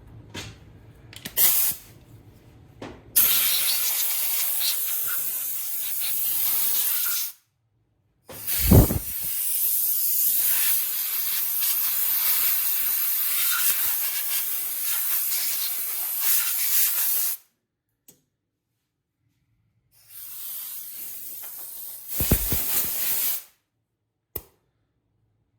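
Compressed-air blow gun blasting dirt off an engine, in three long hisses: about four seconds, then about nine seconds, then a shorter, louder one near the end. A short knock sounds as the second blast starts.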